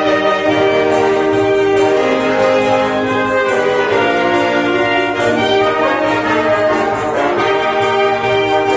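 Small wind band of saxophones and brass playing a slow hymn in held chords that change every second or two.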